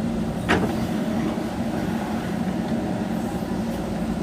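JCB backhoe loader's diesel engine running steadily, with one sharp knock about half a second in.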